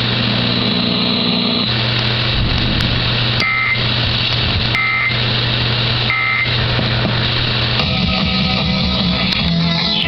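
Emergency Alert System end-of-message data tones: three short, harsh two-tone bursts about 1.3 seconds apart over a steady low hum. About eight seconds in, guitar music comes in.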